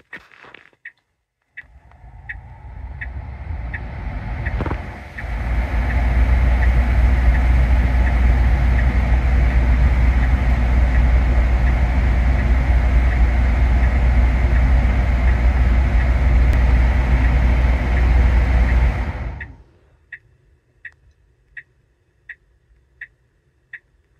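Tesla Model 3 cabin HVAC blower spinning up about two seconds in, running at full speed with a loud steady rush of air, then shutting off a few seconds before the end, during the car's HVAC system performance self-test, which passes. A light ticking about twice a second goes on underneath.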